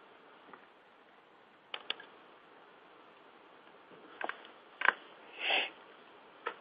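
A quiet pause in a room with faint hiss, a few small clicks and a short breath about five and a half seconds in.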